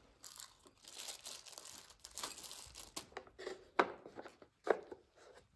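Crinkling and scratching of plastic being handled, then two sharp plastic knocks as a piece of a plastic cat treat maze board is handled and set in place.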